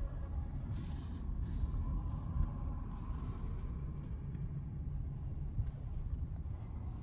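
Steady low rumble of outdoor ambient noise, with no distinct events.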